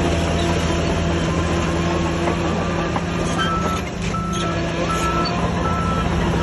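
Heavy diesel earthmoving machinery running steadily, with a reversing alarm beeping about once every three-quarters of a second from about halfway through, the sign of a machine backing up.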